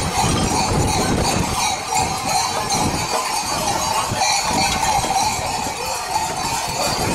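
Large metal bells worn by the fur-costumed Babari, clanging continuously and irregularly as the men walk and jostle along.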